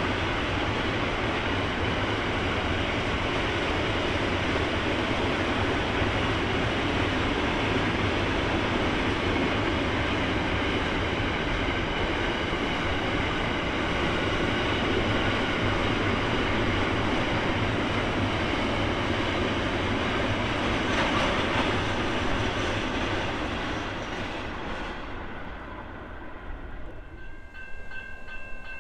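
A train rolling past, the steady rumble of its wheels and wagons on the rails, fading away from about 24 seconds in. As it dies down, a steady high ringing of a few tones comes in near the end.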